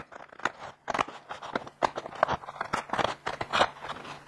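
Scissors snipping slits into a thin cardboard packet used as a pattern template: a string of irregular sharp snips with paper crinkling as the card is handled.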